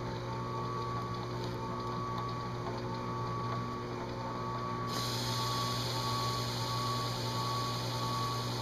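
Delta Shopmaster drill press running with a steady electric hum, set up for engine-turning a metal dash insert; about five seconds in a hiss joins it.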